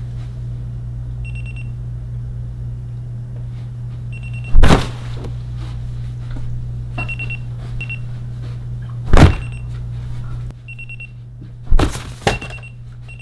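Digital alarm clock beeping in short bursts of a high tone, broken by four loud thumps spaced a few seconds apart. A steady low hum runs underneath and drops away about ten seconds in.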